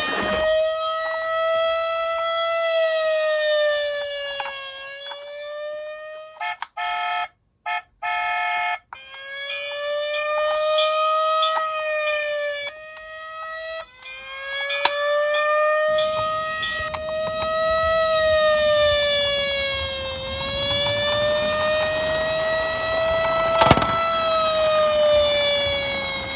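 Toy emergency vehicle's electronic siren wailing, rising and falling slowly over several seconds per cycle, broken by a few short cuts. A low rumble joins about halfway through.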